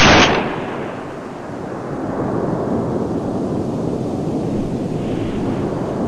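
A single loud gunshot from a hunting gun fired at a hazel grouse, its blast dying away in a rolling echo over about a second, followed by a steady low rumbling noise.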